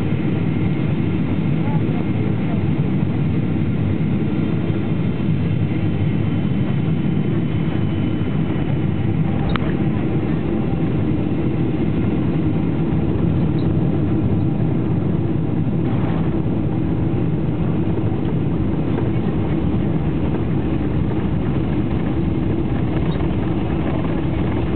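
Cabin noise of a Boeing 777-300 rolling out on the runway after landing: a steady low roar of the engines and airflow. A faint high engine whine fades out over the first several seconds, and two brief clicks come about a third and two thirds of the way through.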